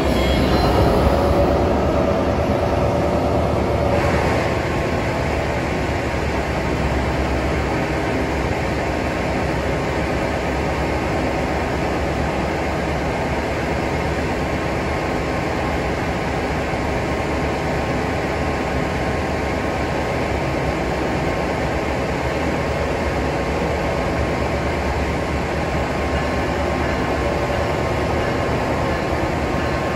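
Siemens SC-44 Charger diesel locomotive running while standing at the platform: a steady engine drone, a little louder in the first four seconds and then even.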